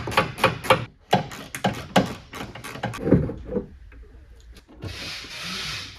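Quick rubbing, scraping strokes, about five a second, as a wiring harness is worked loose from a car trunk lid. They stop about three and a half seconds in, and a short hiss follows near the end.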